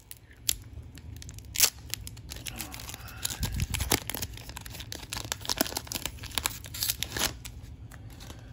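An Upper Deck MVP hockey card pack wrapper being torn open and crinkled in the hands, with irregular sharp crackles, loudest about a second and a half in.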